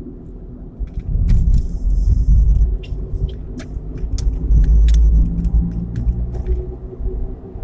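Cabin noise of a 2016 Nissan Versa on the move: a heavy low road rumble that swells twice, about a second in and again around five seconds in. Sharp jingling, clinking rattles are scattered throughout.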